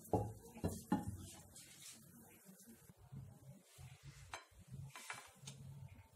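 Cookware clatter: a plastic spatula knocks three times against a non-stick saucepan within the first second, then a few faint light clicks follow.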